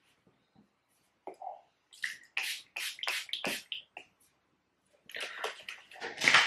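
Urban Decay All Nighter setting spray pumped over a finished face: a quick run of about six short hissing mists about two seconds in, and more spraying near the end.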